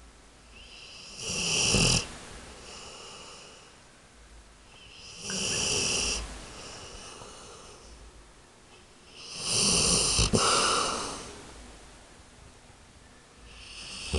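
A sleeping pet snoring in slow, regular breaths: three loud snores about four seconds apart, each lasting about a second, with a fourth beginning right at the end.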